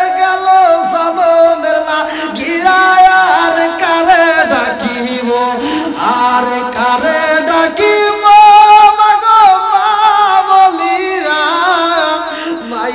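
Male preacher singing a devotional tune in a chanting style, with long held notes that slide and bend from one pitch to the next.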